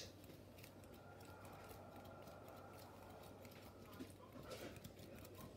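Near silence: room tone with a faint steady low hum, and a few faint small ticks near the end.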